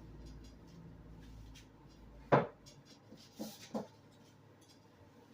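Kitchen handling noise: one sharp knock a little over two seconds in, then two lighter clunks about a second later, over a low hum that fades out.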